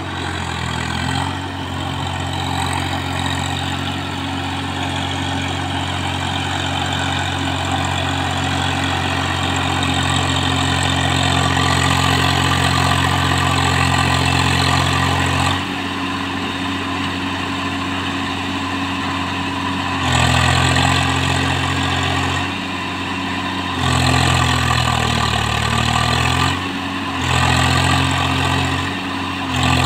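Swaraj 744 FE tractor's three-cylinder diesel engine running under heavy load as the tractor, bogged in the mud of a flooded paddy field, churns to get free. The engine note drops about halfway through, then surges and eases several times in the last ten seconds.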